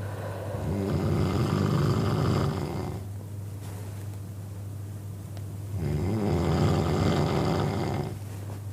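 A man snoring loudly: two long rasping snores, each about two and a half seconds, about five seconds apart.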